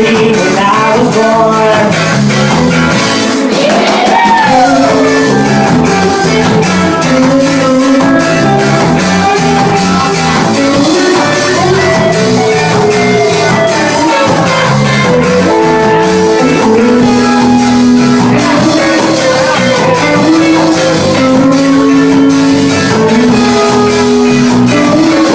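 A ska band playing live: guitar, bass and drums under a sustained melody line, loud and steady throughout.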